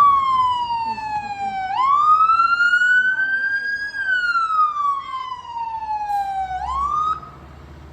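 A siren wailing in slow rising and falling sweeps, two full cycles, then cut off suddenly about seven seconds in.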